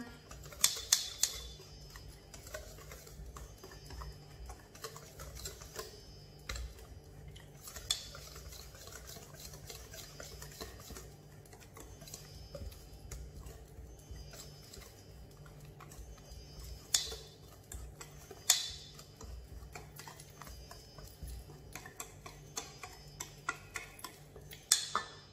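Wire whisk stirring flour into banana bread batter by hand in a stainless steel bowl: a steady run of light ticks and scrapes of the whisk against the bowl, with a few louder clinks.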